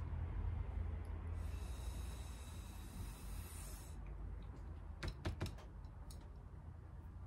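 Breath blown through a drinking straw to push wet ink across paper: a breathy hiss from about a second and a half in until about four seconds. A few quick clicks follow around five seconds, over a steady low hum.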